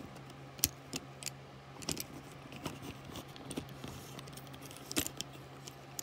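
Paint brush handles clicking and clattering against each other as a hand rummages through a bundle of brushes: irregular light clicks over a low steady hum.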